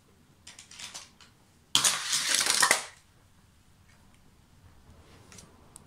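Die-cast toy cars and a plastic toy car-carrier truck being handled: a few light clicks, then one loud rattling clatter lasting about a second, then a few faint clicks near the end.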